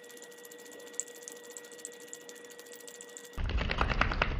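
Domestic cat lapping water from a running bathroom faucet: rapid soft ticking over a faint steady hum. About three and a half seconds in, a much louder noisy stretch takes over.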